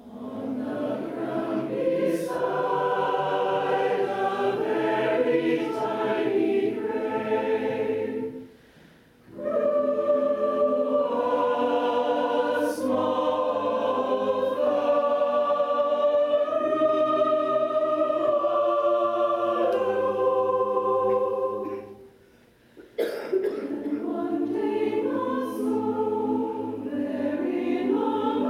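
Mixed choir singing sustained chords in long phrases, breaking off briefly twice, about a third of the way in and again about three-quarters through.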